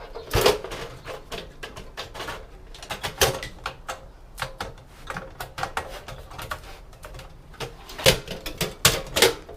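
Clicks, knocks and light clatter of metal and plastic computer parts being handled and pulled apart while a hard drive and its cable are removed from the chassis.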